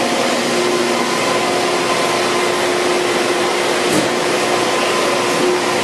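Steady machine-shop noise from CNC machining centers running: a constant hiss with a few faint steady hums through it, and a single brief knock about four seconds in.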